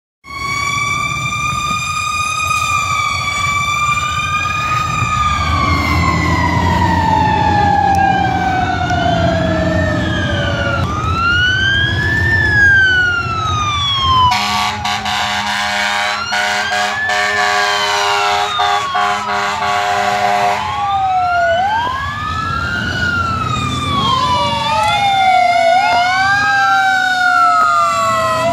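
Fire engine sirens sounding while the trucks respond. Near the start one siren's pitch falls slowly over about ten seconds, while others sweep up and down in repeated wails. A steady air horn blast lasts about six seconds in the middle.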